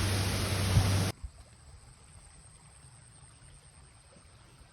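Waterfall rushing, a steady loud wash of water that cuts off abruptly about a second in, leaving only a faint quiet background.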